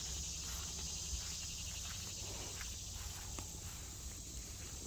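Steady chorus of insects chirring outdoors, with a few faint clicks.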